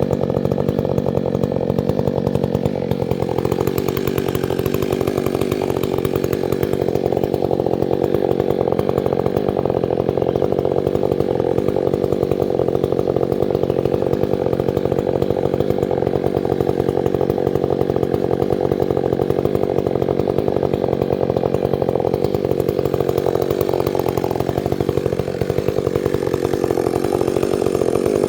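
Chainsaw running steadily at high speed, its pitch dipping briefly near the end.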